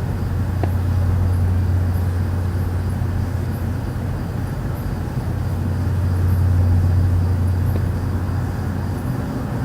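A loud, steady low droning hum over a rumbling haze, swelling slightly about two-thirds of the way through: the unexplained "strange sound" reported in Stockton, California in August 2012, of unknown source.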